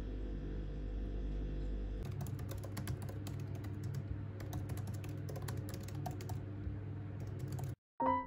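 Typing on a MacBook laptop keyboard: a quick, uneven run of key clicks starting about two seconds in, over a low steady hum. The typing stops just before the end, when piano notes begin.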